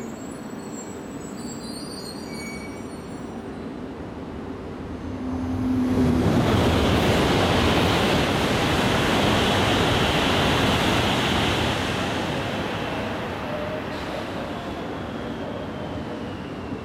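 Tohoku Shinkansen bullet train passing through the station at speed. A steady low background gives way about six seconds in to a sudden loud rush of noise, which holds for about six seconds and then fades, with a faint falling whine near the end.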